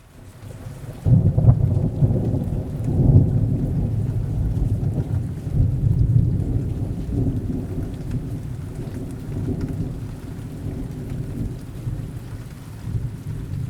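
Rolling thunder over steady rain: a low rumble breaks about a second in, swells again a couple of seconds later, then slowly fades under the rain.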